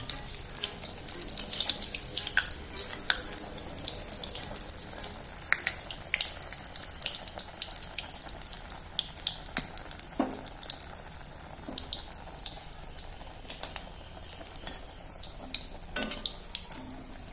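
Batter-coated eggplant slice (beguni) deep-frying in hot oil in a small iron kadai: a dense crackling sizzle that eases off a little over the seconds. A few light knocks from the metal spatula touching the pan.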